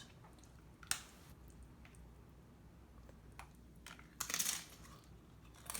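A few faint clicks, then a short crunch about four seconds in and another near the end: a bite of the salsa being taken and chewed.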